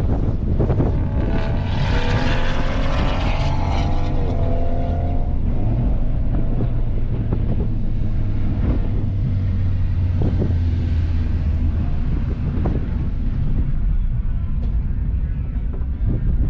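Wind buffeting on the microphone of a moving car, a steady heavy rumble, with the car's engine note rising briefly about two seconds in and falling away about four to five seconds in.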